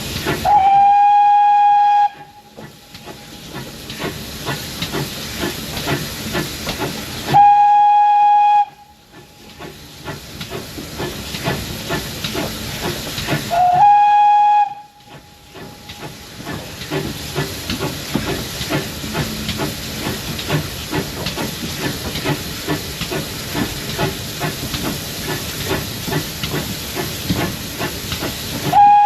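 Steam locomotive whistle blown in three short blasts, each a single steady note, with a fourth starting at the very end. Between the blasts, steam hissing with a quick beat running through it.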